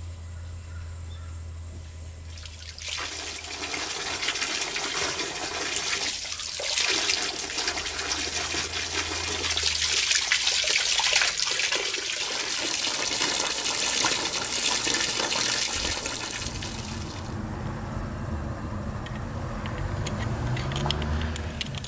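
Water rushing steadily for about fourteen seconds, over a low hum.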